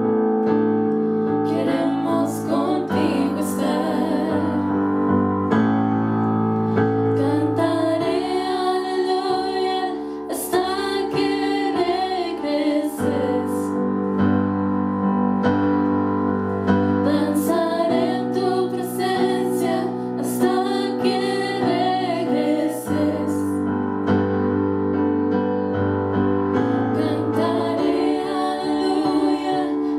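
Three women singing a slow worship song together into microphones over a keyboard accompaniment of held chords that change every few seconds.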